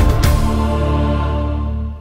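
Closing theme music: a last beat, then a held low chord that fades out near the end.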